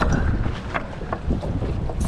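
Wind buffeting the microphone on a fishing boat at sea, with a few light clicks.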